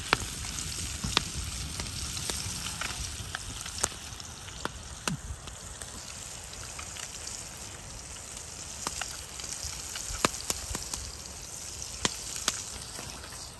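Flounder fillets sizzling in butter in a frying pan over a campfire, a steady hiss with frequent sharp pops.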